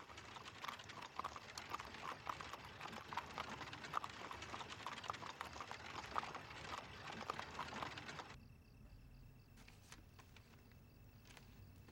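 A horse pulling a carriage, its hooves clip-clopping on a paved lane in a dense, irregular clatter that cuts off abruptly about eight seconds in. After that there is only quiet room tone with a few faint taps.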